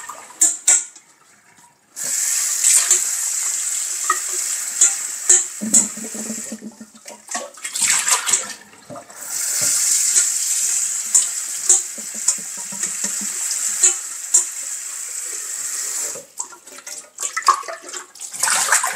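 Water running from a kitchen tap into a stainless steel vessel being rinsed in the sink, the flow stopping and starting several times, with light knocks of the metal now and then.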